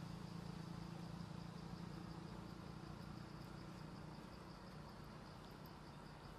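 Faint outdoor ambience: an insect chirping in a rapid, even rhythm of high pulses, about five a second, over a low steady hum.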